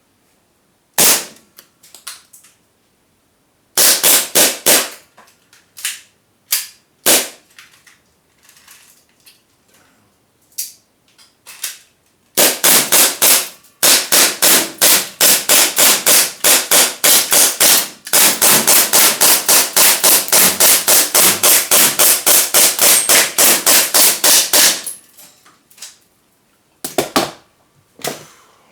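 Gas-powered airsoft gun firing: scattered single shots at first, then long full-auto strings of sharp reports at about four shots a second, and a few more single shots near the end.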